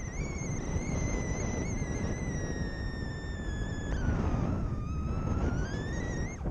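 Airflow buffeting the microphone of a paraglider pilot's camera in flight, with a whistling tone over it that holds near one pitch, dips about four seconds in, then climbs back up.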